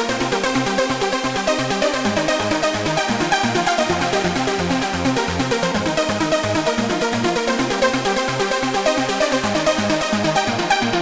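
Roland SH-201 synthesizer playing a trance-style patch from a demo soundset: a fast, steady rhythm of short pitched notes over a busy bass line.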